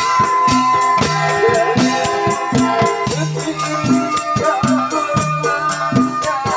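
Javanese gamelan ensemble playing horse-dance music: hanging gongs struck and humming, a large drum beating, and metallophones ringing, over a quick, steady jingling rattle.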